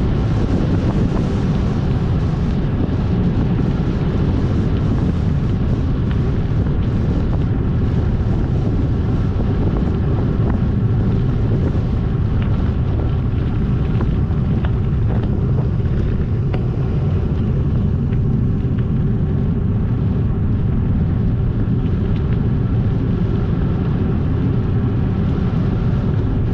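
Wind buffeting the microphone as the bike is ridden: a steady low rumble with no break.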